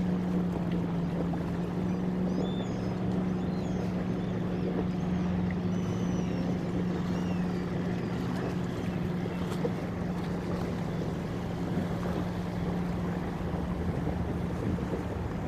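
Engine of a sailing yacht motoring under way, a steady low hum, over the hiss of wind and water along the hull.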